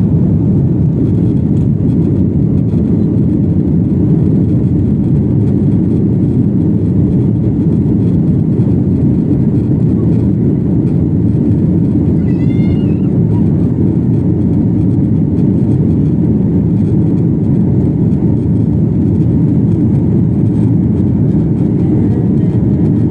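Jet airliner's engines at takeoff power heard from inside the passenger cabin: a loud, steady, deep rumble as the plane speeds down the runway and climbs away.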